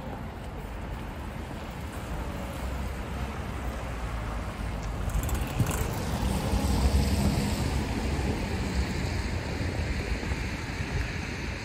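A car driving past on a wet street, its tyres on the wet asphalt, over a steady rumble of city traffic; it swells and is loudest about six to eight seconds in, then fades to a lingering hiss.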